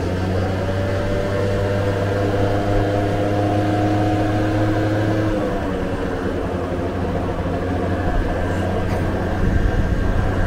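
Vespa scooter engine running at cruising speed under steady wind and road noise, its note easing off about five and a half seconds in and picking back up near the end.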